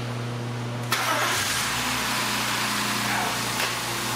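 A freshly rebuilt BMW M52 2.8-litre straight-six fires up suddenly about a second in and runs on at a steady idle.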